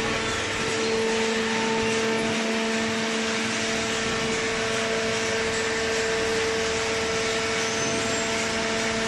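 Hydraulic power unit of a vertical cardboard baler running steadily: an electric motor and pump giving a constant hum with a steady tone.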